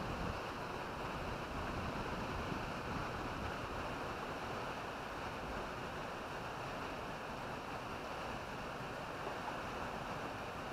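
Steady outdoor noise of wind buffeting the microphone over moving water, with no distinct events standing out.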